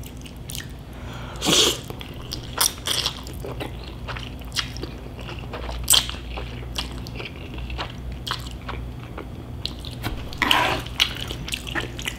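Close-up eating sounds of a person eating Korean cold bibim-men noodles: wet chewing and mouth clicks, with a few short louder slurps as mouthfuls of noodles are sucked in, one about six seconds in.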